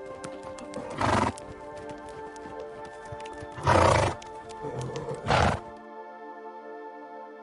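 A horse calling three times in short, loud outbursts, with a patter of hoof clip-clops, over steady background music. The horse sounds stop about six seconds in, leaving only the music.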